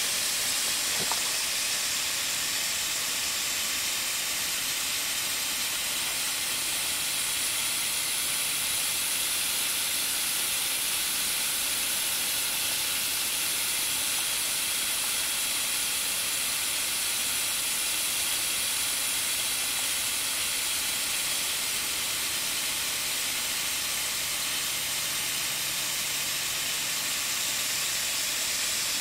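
Backyard snowmaking gun spraying, a steady high hiss that holds unchanged throughout.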